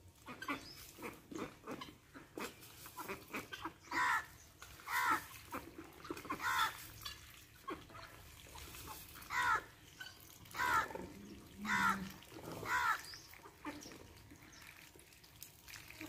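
Farmyard animals calling: about seven short calls between roughly four and thirteen seconds in, over scattered light knocks and shuffling.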